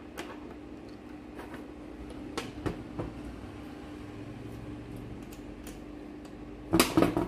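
Small metal parts of a dental-chair solenoid valve clicking faintly as the valve is fitted back together by hand, over a steady hum. Near the end comes a louder clatter of a few sharp metal knocks.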